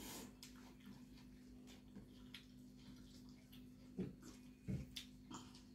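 Faint eating sounds: soft clicks and smacks of eating rice by hand and chewing over a steady low hum. Near the end come a few short, louder gulps as juice is drunk from a glass.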